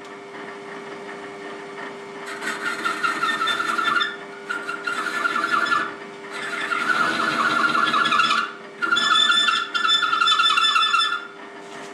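Metal lathe turning down the head of an engine exhaust valve from 39 to 35 mm. A steady motor hum runs under a high screech from the cutting tool, which comes in four passes of about two seconds each, starting about two seconds in, and each pass stops sharply.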